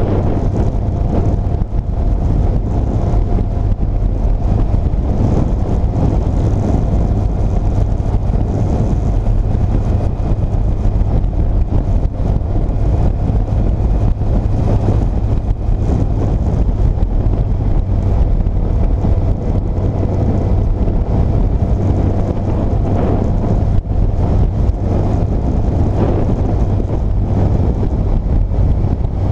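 2006 Yamaha FJR1300's inline-four engine running steadily under way, a constant low drone mixed with wind rushing over the microphone.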